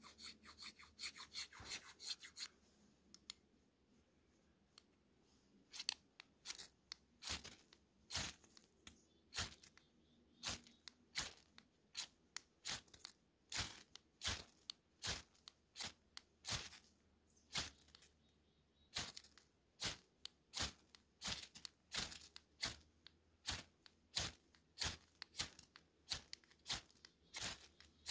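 Hand saw cutting through wood in steady, even strokes, about one and a half a second, with a lighter run of small scratchy sounds at the start.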